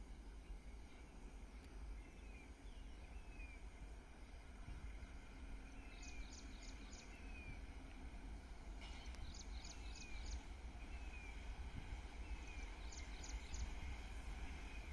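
Small birds calling: a short falling chirp repeated about once a second, and a few bursts of four quick high notes. Under them runs a low steady rumble that grows slowly louder as a distant train approaches.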